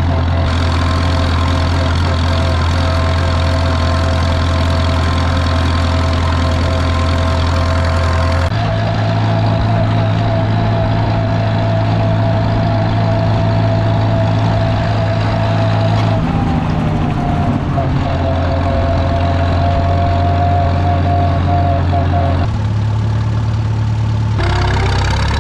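Oliver 66 Industrial tractor engine running steadily. Its note changes abruptly a few times, about a third of the way in and again near the end.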